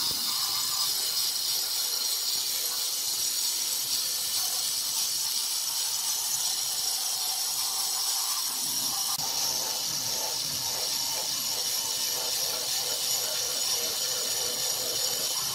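Handheld electric stone cutter with a water-fed diamond blade cutting through a polished black granite slab: a steady, high-pitched grinding hiss.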